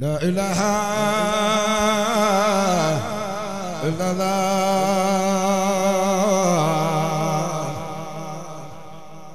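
A solo male voice chanting an Islamic dhikr (zikr) into a microphone in two long, drawn-out phrases with a wavering vibrato. There is a short break about three seconds in, and the voice fades out near the end.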